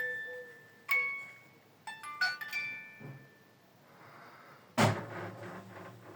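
Background music of bright, bell-like mallet notes, like a glockenspiel, that pauses in the middle; about five seconds in there is a single loud thud with a low rumble after it.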